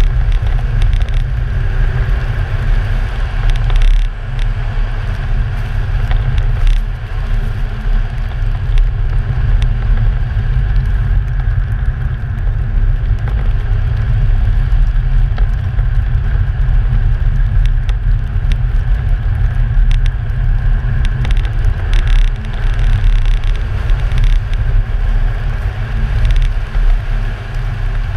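Audi car driving on a snow-packed track, heard from a camera mounted outside on the body: a steady low rumble of engine, tyres and wind buffeting the microphone, with a few faint ticks.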